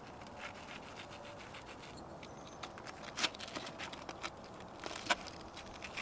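Knife and fork cutting through crispy breaded fried fish cutlets on a metal tray: a light crackle of the crust with small clicks and scrapes of the cutlery. Two sharper clicks stand out, about three seconds in and near the end.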